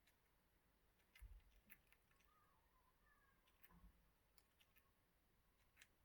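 Pet parrot grinding its beak: faint, scattered sharp clicks with a soft short chirp partway through.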